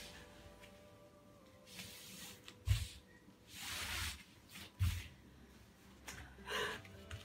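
Soft thuds of bodies shifting on a foam floor mat, twice, with a hard breath in between, as a person is pushed forward into a straddle split stretch.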